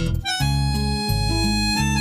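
Instrumental background music: held melody notes over a sustained bass line, coming back in just after a brief dip at the start.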